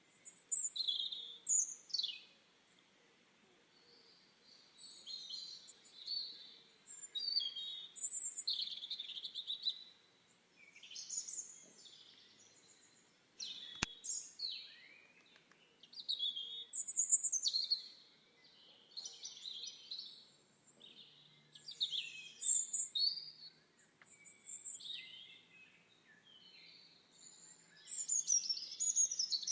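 Forest songbirds singing: a continuous run of short high chirps, trills and quick sliding whistles, phrase after phrase with short pauses between. A single sharp click sounds about halfway through.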